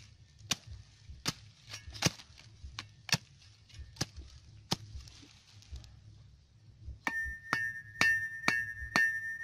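Sharp knocks at uneven intervals, then about seven seconds in a ringing, bell-like note that repeats about twice a second.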